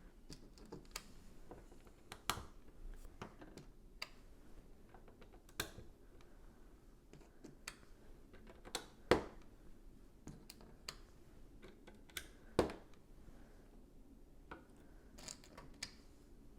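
Lego pieces being handled and pressed together: scattered sharp plastic clicks and taps, with a few louder snaps about nine and twelve and a half seconds in.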